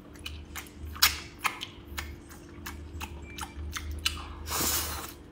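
Close-up eating sounds: wet chewing clicks and lip smacks on wide starch noodles, with a longer slurp about four and a half seconds in.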